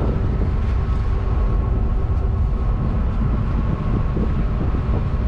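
Steady low rumble of wind buffeting the microphone on a ship's deck, over a faint, even machinery whine.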